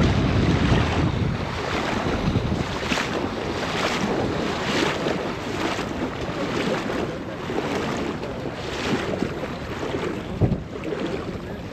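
Wind buffeting the microphone over sloshing water, with a splash about once a second from legs wading through shallow water.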